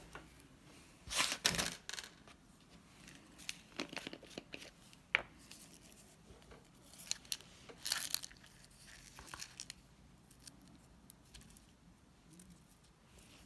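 Plastic candy packet crinkling and rustling in several bursts as it is handled and opened, with a few small sharp clicks.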